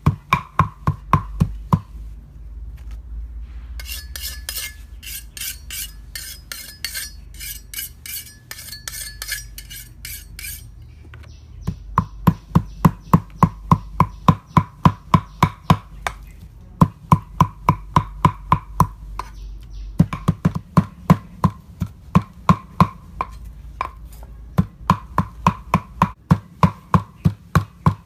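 Food being chopped with a knife on a cutting board in a steady rhythm, about three to four strokes a second, with short pauses. In one stretch the strokes sound sharper and brighter.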